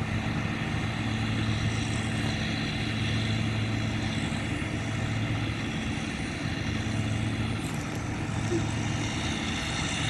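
An engine running steadily: a constant low drone with a faint higher hum above it, unchanged throughout.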